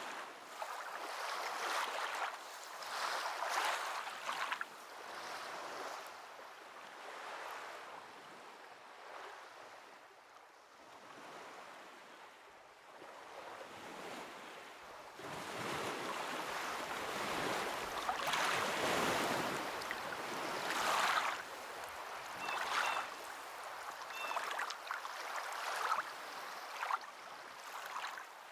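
Ocean waves washing in and drawing back, a steady hiss that swells and fades every few seconds, with a longer, louder surge about two-thirds of the way through.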